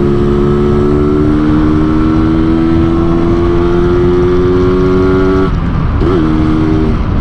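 A 2004 Yamaha RX-King's 135 cc single-cylinder two-stroke engine running under way. Its exhaust is tuned in the Medan style for the growling 'ngorok' (snoring) note. The note climbs slowly, then about five and a half seconds in it breaks and dips briefly before levelling off.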